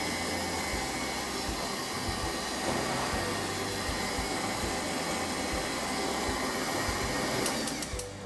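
Electric stand mixer running steadily, beating cheesecake batter in its steel bowl, with a steady motor hum; it stops near the end.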